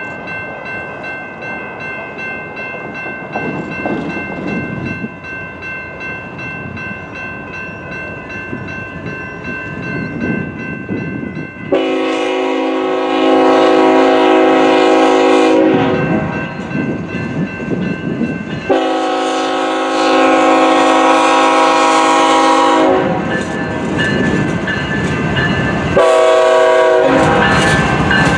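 BNSF diesel locomotive's air horn sounding over the rumble of the engine and wheels as the train approaches and passes. A quieter held chord comes first; then the horn gives two much louder long blasts and a short one, typical of the grade-crossing signal.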